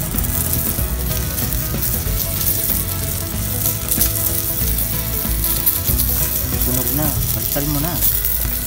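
Puyo (climbing perch) sizzling steadily as they grill on a hot metal sheet over a wood fire.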